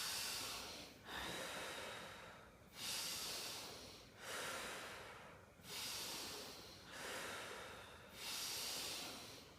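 A person taking a series of slow, deep breaths, about six drawn-out breath sounds roughly a second each. This is the deep-breathing phase of the effective-cough technique, which comes before the forceful cough that clears phlegm.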